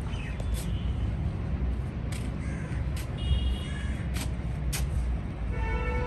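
Crows cawing over a steady low rumble, with a few sharp clicks. Background music with sustained tones comes in near the end.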